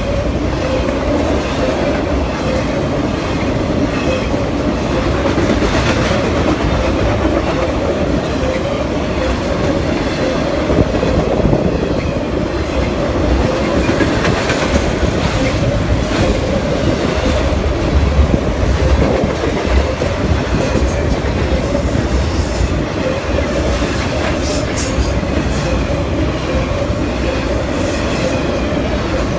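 Norfolk Southern intermodal freight train's container and trailer cars rolling steadily past: steel wheels rumbling on the rails, with clickety-clack over rail joints and brief high-pitched wheel squeals about two-thirds of the way through.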